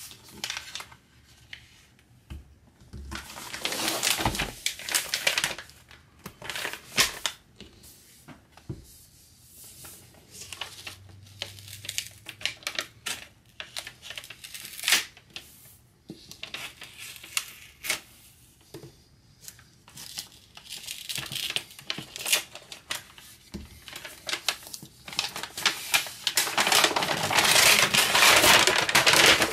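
Brown kraft wrapping paper being slit, torn and folded back off a parcel: intermittent crinkling and rustling with quiet gaps, turning into steady loud crinkling near the end as the wrapping is pulled open.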